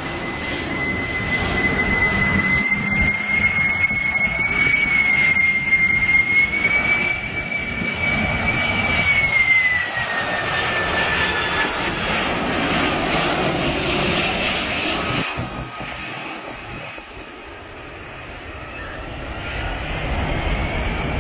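Boeing 747 air tanker's jet engines making a low pass: a loud jet roar with a high engine whine that slides down in pitch about ten seconds in. The roar fades for a moment about seventeen seconds in, then builds again.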